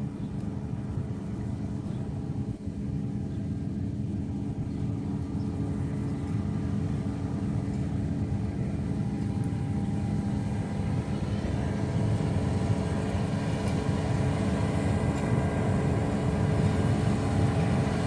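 Combine harvester running as it cuts wheat: a steady engine and threshing drone with a few held tones over a low rumble, growing gradually louder as the machine comes closer.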